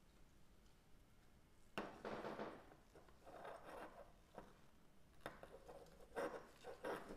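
Faint knocks and rustles of small objects being handled: one about two seconds in, then a cluster in the last two seconds.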